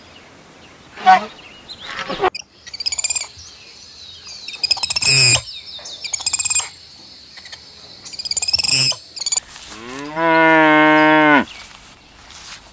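A cow mooing once, a long low moo of about two seconds near the end. Before it come several short bursts of high chirping calls.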